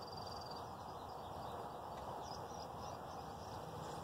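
Quiet outdoor ambience: a steady low hiss with a few faint, distant bird chirps, once at the start and again about two seconds in.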